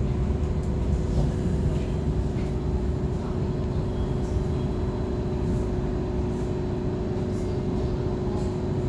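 Two-car first-generation Hong Kong Light Rail train: a steady low rumble with a constant hum and a few faint clicks.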